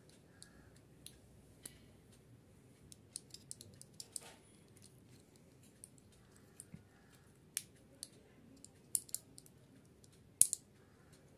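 Scattered small clicks and taps from fingers handling and prying at a tiny selfie-stick Bluetooth remote, with the sharpest click about ten seconds in.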